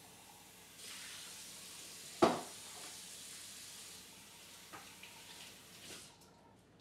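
Eggs frying in a pan on the stove: a steady sizzling hiss that swells a little under a second in and fades near the end, with a sharp knock about two seconds in and a few lighter clicks.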